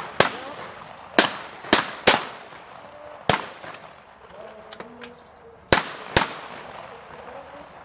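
Shotgun shots at clay targets: about seven sharp reports, two of them quick pairs about half a second apart, with fainter, more distant shots between.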